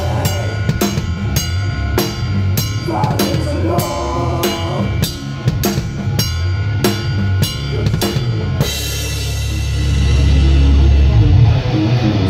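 Live rock band heard close to the drum kit: drums with crash cymbal hits about twice a second over bass and guitar. About eight and a half seconds in the drum hits stop and a loud, low held chord rings out, swelling near the end.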